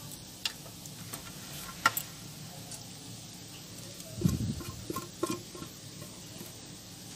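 Onion kachori filling cooking gently in a nonstick kadai over the gas: a faint steady hiss with scattered small ticks and pops. A brief clatter comes a little after four seconds in.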